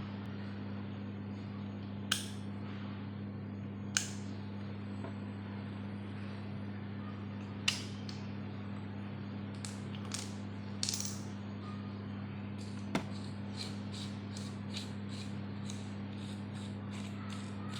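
Steady low electrical hum with a few sharp clicks, then in the second half a run of quick short scraping strokes, about two a second, from small parts being handled and worked on at a bench.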